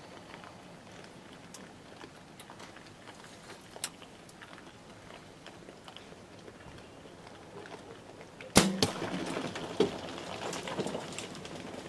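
Faint crunching and clicking of feral hogs feeding, then a compound bow shot about eight and a half seconds in: one sharp crack of the string and arrow strike. Several seconds of scrambling noise follow as the hogs bolt.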